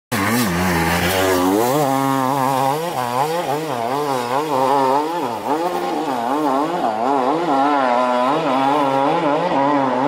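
Enduro motorcycle engine, its revs rising and falling over and over as the rider works the throttle, after a steadier first second or two.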